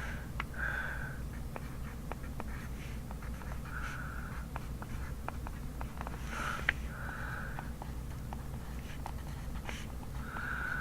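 Pencil writing on paper: short scratchy strokes a few seconds apart with light ticks of the lead in between, over a steady low hum.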